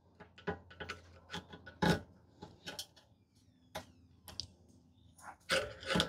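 Pliers clicking and scraping on the metal glow plug of a diesel air heater as it is worked loose and unscrewed, a string of irregular sharp clicks.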